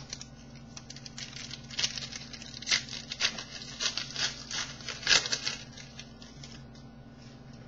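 Baseball cards and their packaging being handled at close range: a run of crinkling, rustling and light clicks, loudest about five seconds in.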